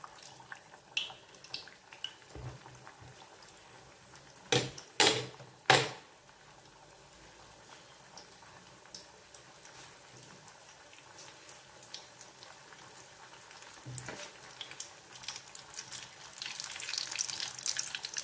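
Flour-coated potato bomb frying in hot olive oil in a small stainless saucepan: a low sizzle that grows into louder crackling near the end. Three sharp knocks come about four to six seconds in.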